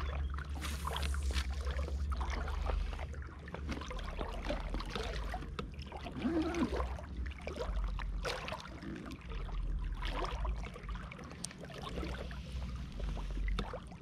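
Water splashing and lapping around a float tube, with scattered clicks and knocks from handled fishing gear over a steady low rumble.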